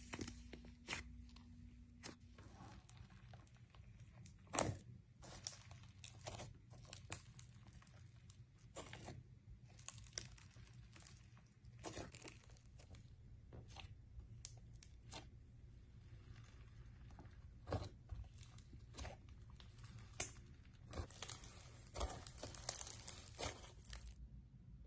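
Fingers squishing, stretching and poking thick slime in a plastic jar, giving irregular sticky pops, tearing sounds and crackles. The crackling gets denser a few seconds before the end.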